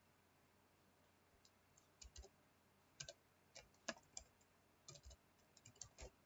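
Computer keyboard keys clicking faintly in short, irregular runs as a word is typed, starting about a second and a half in.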